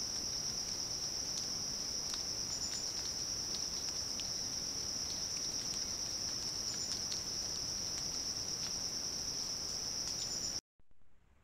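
Steady high-pitched insect chorus, a continuous buzz, with a few brief higher chirps over it; it cuts off suddenly near the end.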